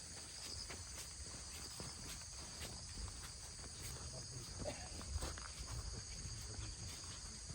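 Steady high-pitched drone of a forest insect chorus, with irregular footsteps on the forest floor underneath.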